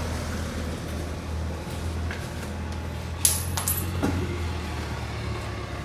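A steady low hum, with a brief, high-pitched metallic clink or jingle a little past three seconds in.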